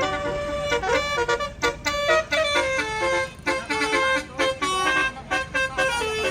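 Tour bus's Basuri telolet horn playing a fast tune of short notes that step up and down in pitch.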